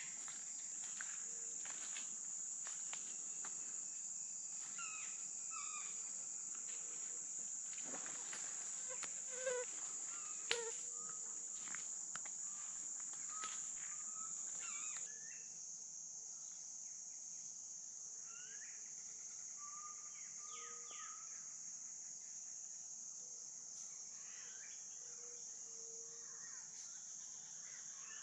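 A steady, high-pitched chorus of insects in a tropical forest, with short calls of birds here and there. Through the first half, light footsteps and snaps on the leaf litter go along, with two sharper knocks about ten seconds in; after that only the insects and birds remain.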